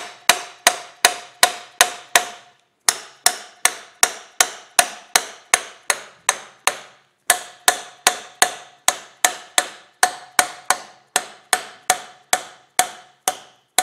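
Red plastic mallet tapping a bronze half-bushing down into a steel block: steady quick blows, about three a second, each with a short ring, with two brief pauses. The bushing is being driven into a very slight tap-in fit.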